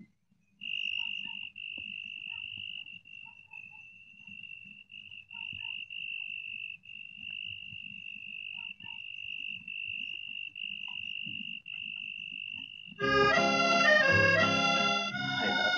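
Crickets chirping in a steady high trill, repeating about once a second. About thirteen seconds in, organ music comes in with full chords.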